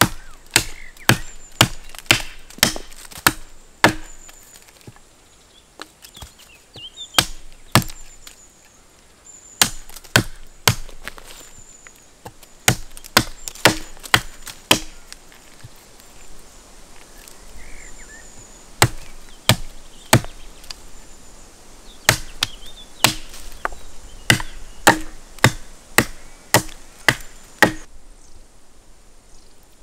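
Fiskars X7 hatchet chopping the end of a birch stick to a stake point: a series of sharp chops, about one to two a second, in runs with short pauses between them, stopping near the end.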